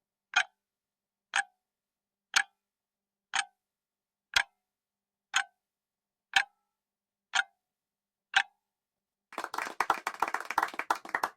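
Countdown-timer clock tick sound effect, one sharp tick each second, nine ticks, marking the quiz's 10-second answer time. About nine seconds in, the ticking gives way to a dense rattling burst that runs to the end.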